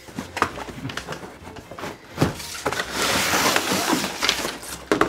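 Cardboard box being opened and a plastic Spirit Halloween toy proton pack lifted out of it: scattered knocks and scrapes, with a loud rustling scrape lasting about a second and a half from about three seconds in.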